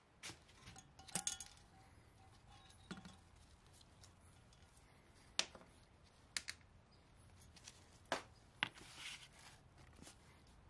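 Scattered metallic clicks, clinks and light knocks as tools and parts are handled on an aluminum cylinder head, about half a dozen separate sharp sounds spread over several seconds.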